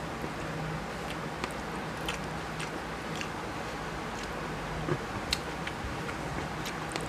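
Eating rice and fish curry by hand: small wet clicks and squishes of fingers mixing rice on a glass plate, and chewing, over a steady low hum. One click about five seconds in is louder than the rest.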